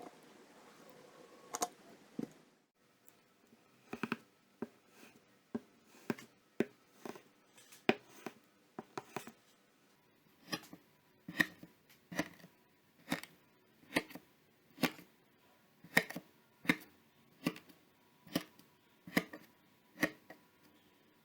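Crunchy kinetic sand being cut: a run of short, crisp crunches, irregular at first and then coming steadily at roughly one a second through the second half.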